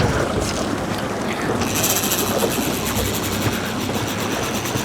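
Boat under way on open sea: engine and water rushing along the hull make a steady noise. About two seconds in, a high hiss with a fast, even pulsing joins it.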